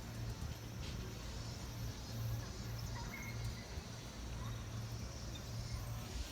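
Steam locomotive (Oigawa Railway's C11 dressed as Thomas) working slowly during shunting, a low pulsing beat about twice a second.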